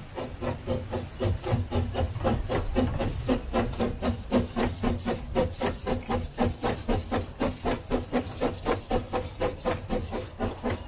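Hunslet narrow-gauge steam locomotive chuffing past at low speed: a regular beat of exhaust puffs, about four a second, over a steady hiss of steam.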